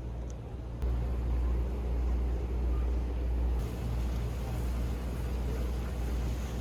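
Steady low rumble of a moving vehicle, which grows louder a little under a second in and then holds.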